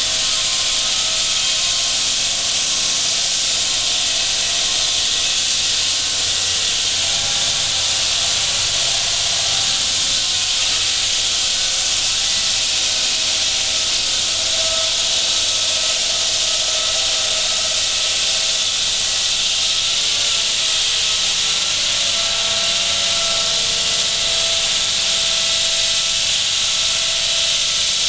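Concrete wall saw's diamond blade cutting through concrete, running steadily: a constant loud hiss with a steady whine.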